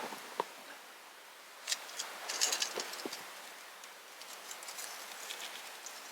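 Wood campfire crackling, with scattered sharp pops and snaps over a soft hiss, and a quick cluster of crisp snaps about two and a half seconds in.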